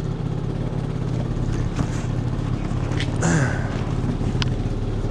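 Motor scooter's engine idling with a steady low hum while stopped, with a brief falling sound about three seconds in.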